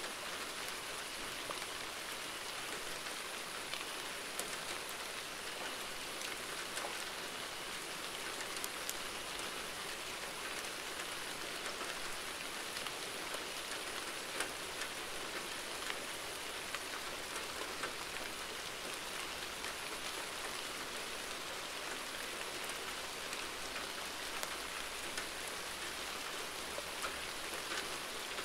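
Rain falling steadily: an even hiss with many scattered, sharper drop hits.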